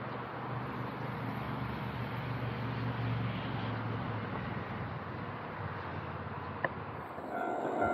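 Distant Keihan electric train running along an elevated viaduct: a steady low rumble that swells slightly and then fades as the train moves off.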